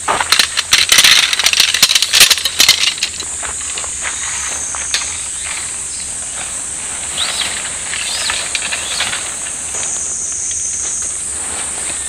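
A quick run of sharp metallic clinks and clicks over about the first three seconds, then steady high insect chirring, with a few faint clicks later on.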